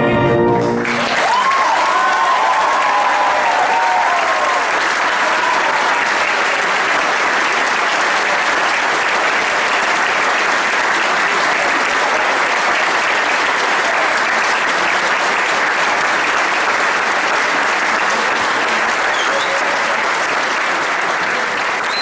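The final chord of a wind band and singers ends about a second in, and the audience breaks into steady applause, with some cheering over the first few seconds.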